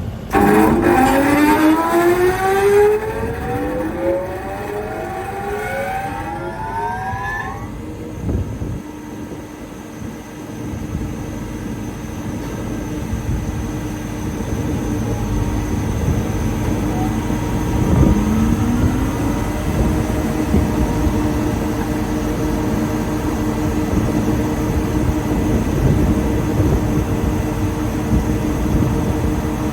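TOS Svitavy FWD 80 double-sided planer's electric motors starting up: a rising whine as the four-knife cutterheads spin up over about seven seconds, then a steady running hum. About 18 seconds in, a second motor starts and climbs in pitch before settling, and the machine runs on steadily.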